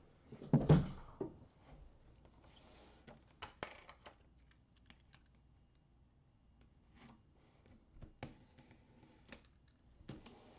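An Upper Deck hockey card box being handled and shifted on a desk: one heavy thump about half a second in, then scattered light taps and scrapes of cardboard.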